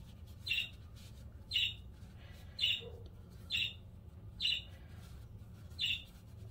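A bird chirping over and over: six short, high calls about a second apart, over a low steady hum.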